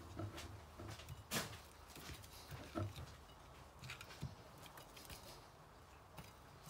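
Faint clicks and taps of a plastic spice shaker being shaken and handled over a plate of cut potatoes, the sharpest tap about a second and a half in.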